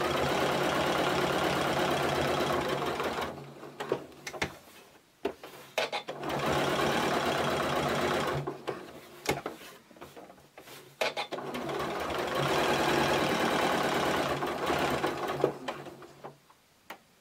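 Janome Atelier 9 sewing machine running a straight topstitch in three runs of about three to four seconds each. It stops between runs while the fabric is pivoted at the corners, and there are short clicks in the pauses.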